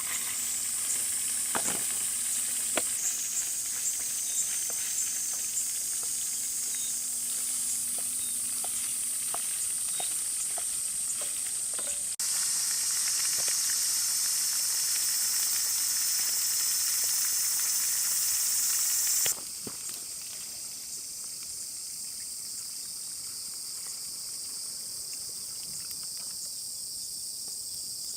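Mapo tofu sizzling in a skillet over a wood fire: a steady frying hiss with scattered sharp clicks. The sizzle steps abruptly louder about twelve seconds in and drops back abruptly a few seconds before the end.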